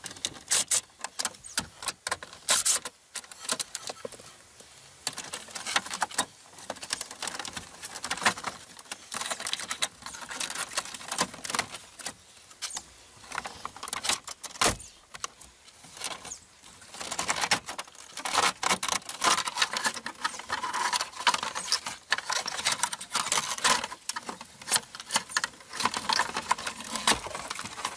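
Irregular clicks, clinks and rattles of hand work on a pickup truck's dashboard panels, with tools on the screws and trim, and keys jangling in the ignition.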